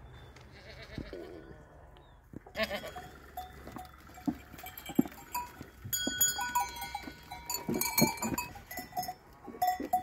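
Herd of Alpine goats crowding in a pen, their bells clinking and clanking in quick, irregular strokes that start about two and a half seconds in after a quieter start.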